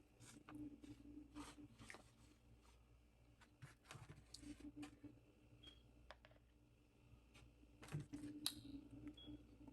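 Faint eating sounds: chewing with scattered small mouth clicks and food-handling noises, a few louder ones about 8 seconds in, over a faint steady hum.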